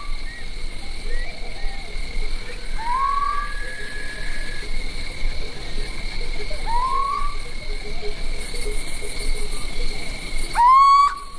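Natural night-time ambience: a steady high insect trill, with a short rising animal call repeated about every four seconds, the last one loudest near the end.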